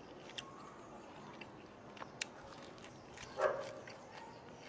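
A dog gives one short yelp about three and a half seconds in. Faint light clicks and rustles come from fresh herb leaves being picked off a platter.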